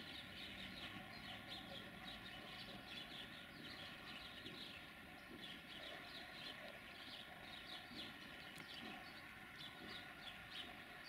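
Small birds chirping continuously and faintly, over a low background rumble of distant road traffic and a steady faint hum.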